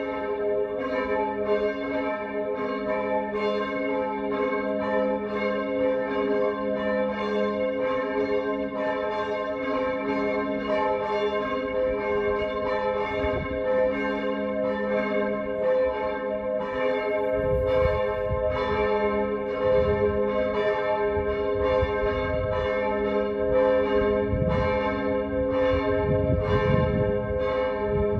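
Church bells ringing together in a continuous peal, about two strokes a second, their several tones overlapping and hanging on. A low rumble comes and goes in the second half.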